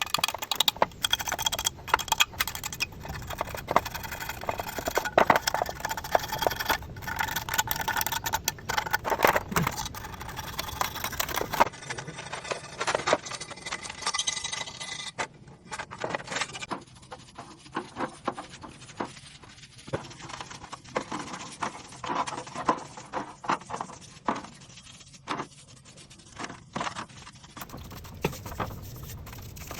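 Hand tools and metal parts clinking, tapping and scraping in irregular knocks, as in hands-on mechanical repair work.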